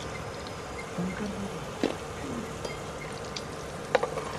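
French fries sizzling steadily in hot oil, frying on a low flame to crisp up. There are a couple of sharp clicks, about two seconds in and near the end.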